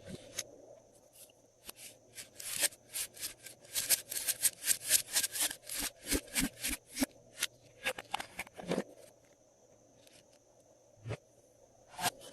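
Glossy slime being worked by hand, giving a quick run of sharp sticky clicks and pops for several seconds, then a couple of single pops near the end.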